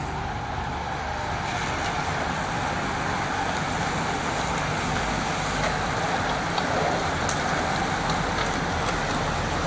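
A bunch of racing bicycles passing close by, their tyres and drivetrains making a steady rushing noise that grows a little louder, mixed with the engine of a car following the riders.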